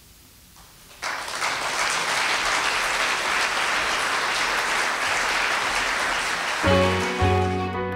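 Audience applauding, starting about a second in after a moment of quiet, with music coming in over the applause near the end.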